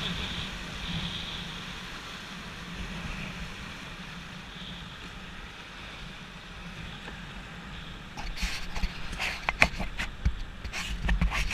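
Rushing whitewater of a class III rapid, heard from a raft at water level, easing as the raft runs out into calmer water. From about eight seconds in comes a run of sharp, irregular knocks and bumps close to the microphone.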